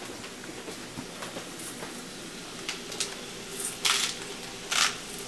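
Himalayan pink salt being ground in a hand-twisted grinder over a pan: a few short gritty crunches in the last couple of seconds.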